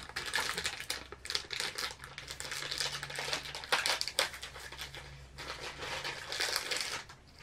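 Thin clear plastic packaging bag crinkling as it is handled and opened by hand: dense, irregular crackles that stop about seven seconds in.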